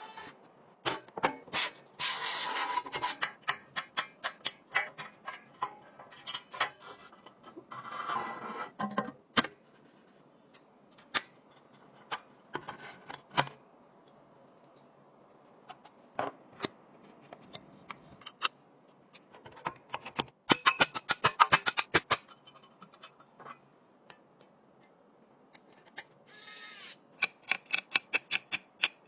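PC parts being handled and fitted during an assembly: irregular sharp clicks and taps, with short bursts of rustling and scraping. A dense run of rapid clicks comes about two-thirds of the way in, and another comes near the end.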